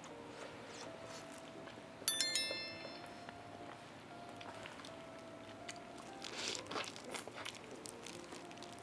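Soft background music, with a bright sparkling chime sound effect about two seconds in that rings out and fades within half a second. Around six to seven seconds in come close eating sounds: biting and chewing into braised chicken.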